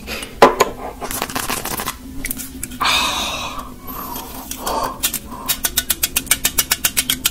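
A glass mug set down on a wooden table with sharp clinks. A soda can is cracked open with a short fizzing hiss about three seconds in. Near the end the soda is poured into the glass, with a fast, even run of ticks.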